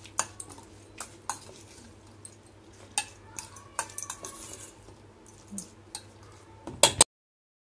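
Metal spoon scraping and clinking against a stainless steel bowl while stirring grated carrot pickle, in irregular strokes. There are a few louder knocks near the end, and then the sound cuts off abruptly.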